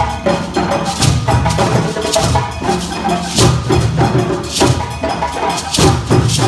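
A group of djembe hand drums, with deeper bass drums under them, playing an interlocking West African rhythm together, with a bright accent recurring about once a second.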